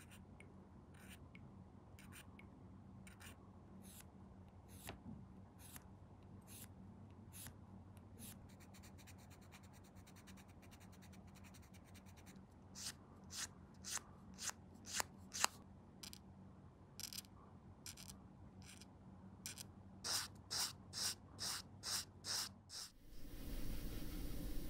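A hand tool working small plastic model parts: a series of short scratching strokes, spaced about a second apart at first, then in quicker, louder runs of about two a second. Near the end the strokes give way to a steady hiss and low hum.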